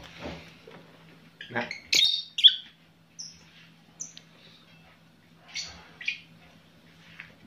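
Pet lovebirds chirping: a series of short, sharp, high calls, the loudest two close together about two seconds in, over a faint steady hum.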